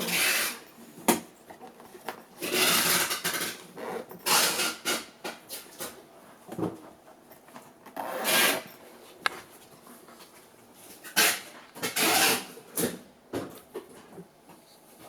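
A folding camping chair being handled: a series of short scraping and rustling bursts with a few sharp clicks, about every one to two seconds.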